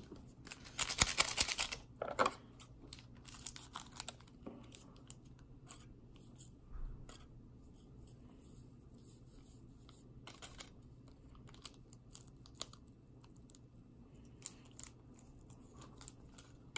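Small packet from a DIY candy kit torn open with a loud rip about a second in and a shorter one just after, followed by scattered light rustles and clicks as it is handled.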